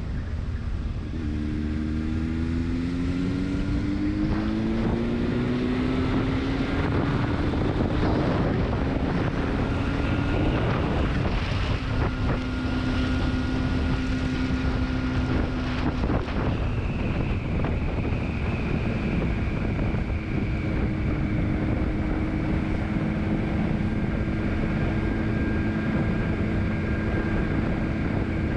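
Motorcycle engine accelerating, its pitch rising over the first several seconds, then running at a steady pitch, under heavy wind rush on a helmet-mounted action camera's microphone.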